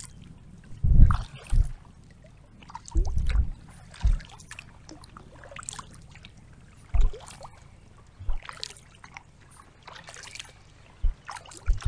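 Lake water lapping and dripping around a kayak, with irregular low thuds every second or few seconds.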